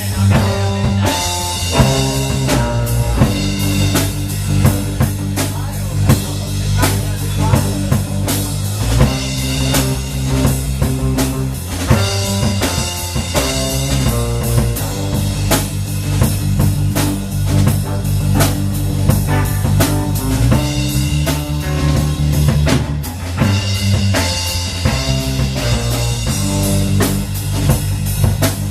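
Live blues band playing an instrumental passage: drum kit keeping a steady beat under guitar and held bass notes.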